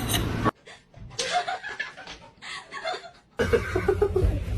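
A person chuckling and laughing in short bursts. The sound drops sharply about half a second in to a quiet stretch of scattered small sounds, and the laughter comes in louder near the end.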